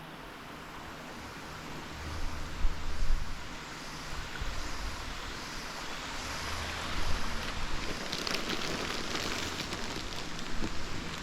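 Steady rush of waterfall water, with gusts of wind buffeting the microphone in low rumbles.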